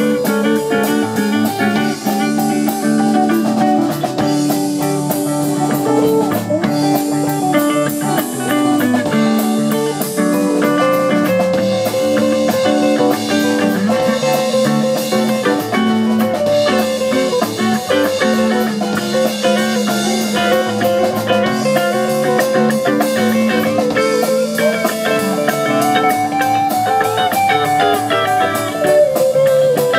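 Live rock band playing: electric guitars over a drum kit, with steady loud guitar lines throughout.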